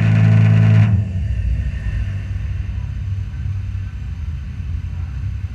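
Dirt modified race car engine idling with a steady low drone, then switched off a little under a second in. A low rumble goes on after it.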